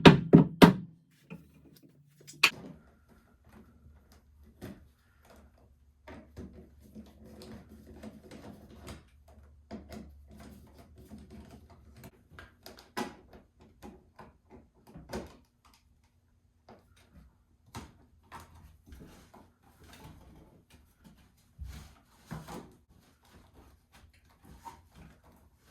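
Scattered light knocks, clicks and rustling from handling electrical cable while it is being pulled and run through the wall framing.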